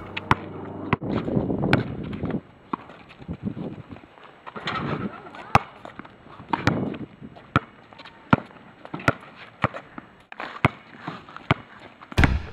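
A basketball bouncing on a concrete court as it is dribbled, one sharp bounce about every second at an uneven pace, over faint background noise.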